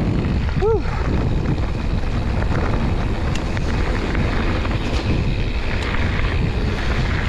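Wind buffeting the microphone of a mountain biker's camera while he rides a dirt trail, a dense steady rush. A short pitched sound rises and falls once, under a second in.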